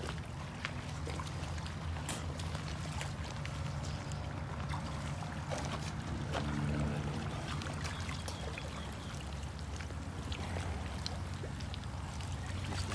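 Water splashing and sloshing around people in a lagoon, over a steady low hum. Near the end a bighead carp thrashes in a floating keep net, churning the water.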